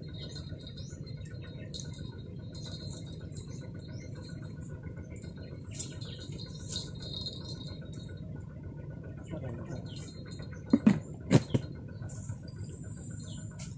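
Riverbank ambience: a steady low rumble with faint, scattered bird chirps. About eleven seconds in come three loud, sharp knocks in quick succession.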